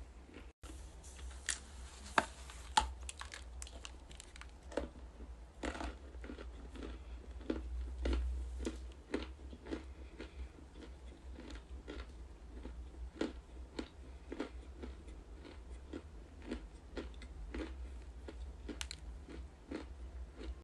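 Close-miked biting and chewing of crunchy pieces of clay: a run of irregular crisp cracks and crackles, with a few sharper bites about two to three seconds in.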